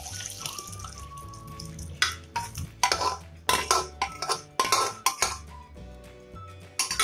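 Metal spoon scraping and knocking against the inside of an aluminium pot as boiled chana dal is emptied into a kadai: a quick, irregular run of clinks and scrapes from about two seconds in, over soft background music.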